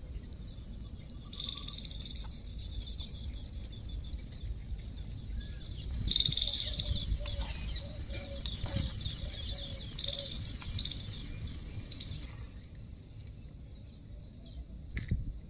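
Hot oil sizzling and crackling in a miniature metal kadai as small pieces deep-fry, loudest about six seconds in while a slotted metal spoon stirs them. A sharp click of the metal spoon comes near the end.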